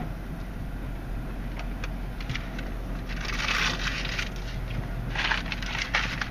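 Hand-held pressure-wash wand spraying water onto the car's windshield and body before it enters the tunnel wash, heard from inside the car. The spray hisses in two swells, about three seconds in and again about five seconds in, over a steady low hum.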